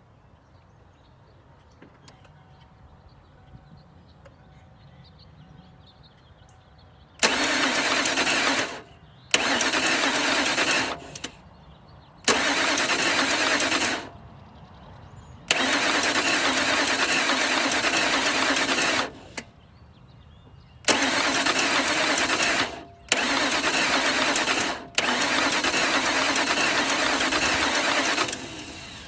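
1998 Lincoln Continental's 4.6-litre V8 being cranked by its starter motor seven times, each crank lasting one and a half to three and a half seconds with short pauses between, and never catching: the engine cranks but will not start despite a fresh battery, alternator and fuel.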